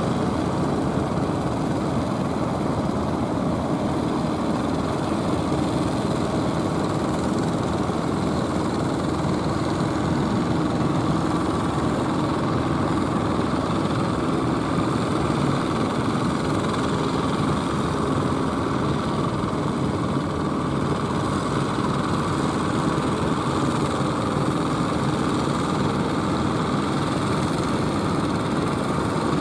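Engine of a large wooden fishing boat running steadily as the boat motors slowly in: a continuous, even drone with a faint steady hum.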